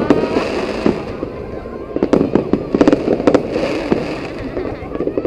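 Aerial firework shells bursting overhead in quick clusters of sharp bangs, one cluster at the start and another about two seconds in, over the steady murmur of a crowd.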